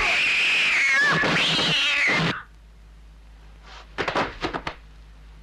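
A loud cat-like yowl, about two seconds long, its pitch rising and falling. It stops abruptly, and a couple of seconds later comes a quick run of sharp hits.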